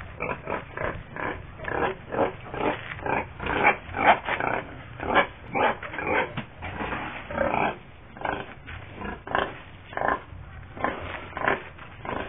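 A large boar grunting over and over in short grunts, about two to three a second.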